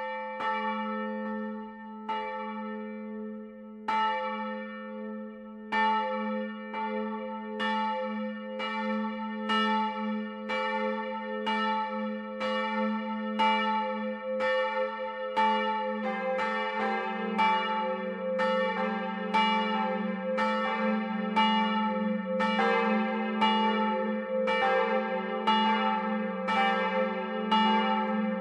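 Church bells of an electrically driven three-bell peal, cast by the Otto foundry in 1951, swinging and striking, heard close up in the belfry. Each strike rings on under the next, and the strikes come closer together. About halfway through a deeper bell joins and the peal grows fuller.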